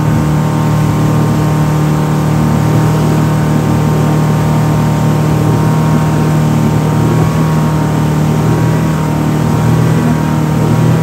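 An engine running at a steady speed: a constant, even drone that does not rise or fall.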